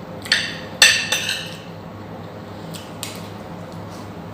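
Cutlery and dishes clinking together: three sharp clinks in the first second and a half, then a fainter one about three seconds in.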